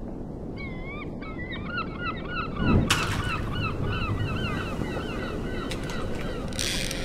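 Gulls calling in a quick series of short wavering cries over a steady low rumble, with a louder whoosh a little under three seconds in.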